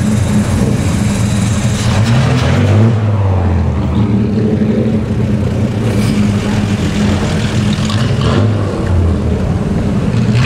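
Big vintage straight-six engines of a 1936 Lagonda M45 and a 1937 Bentley Derby tourer running at low revs as the cars roll slowly past, with a short rise in revs about two to three seconds in.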